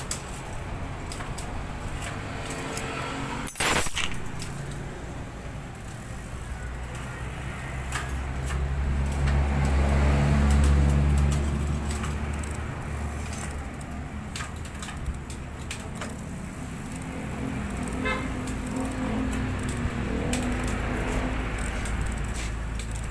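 A motor vehicle's engine hum swells to its loudest about ten seconds in, then fades back to a steady drone. Scattered light clicks and one sharp knock about four seconds in sound over it.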